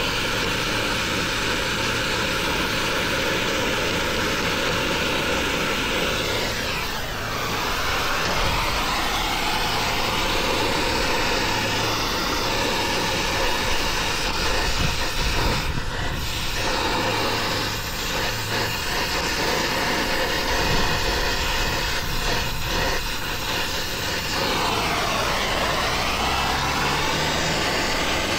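Brazing torch burning with a steady hiss as the copper discharge line is brazed onto a replacement mini-split compressor.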